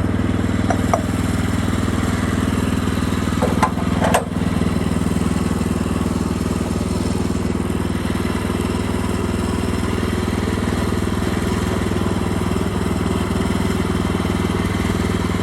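Engine of a Woodland Mills portable bandsaw sawmill running steadily. A few light clicks come about a second in, and a couple of brief clanks about four seconds in.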